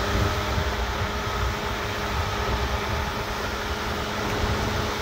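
Steady mechanical hum with a rumbling low end and a few faint steady tones, unchanging throughout.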